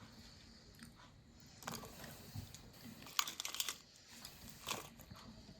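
Faint kitchen handling noise: soft rustling with a few small clicks and crunches scattered through, as food and utensils are handled.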